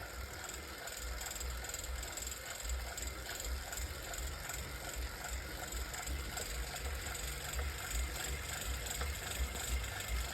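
Wahoo indoor bike trainer making a weird mechanical noise: a low thud repeating somewhat unevenly, a bit more than once a second, over a steady whirring hiss.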